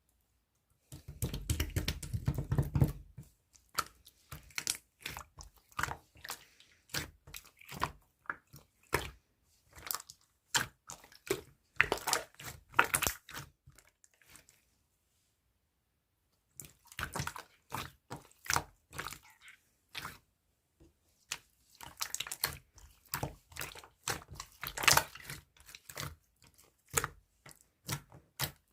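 Red clear slime with a jelly-like texture being squished and pressed by hand, giving irregular sticky clicks, crackles and small bubble pops, with a pause of about two seconds midway.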